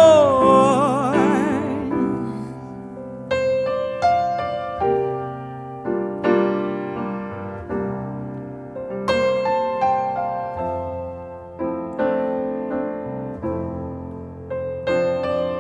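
Solo grand piano playing a slow, gentle passage, chords and notes struck about once a second, each ringing out and fading. A woman's held sung note with vibrato trails off over the first two seconds.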